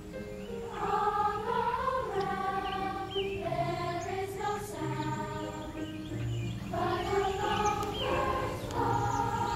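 A school choir singing a song, in phrases of a couple of seconds each with short breaks between them.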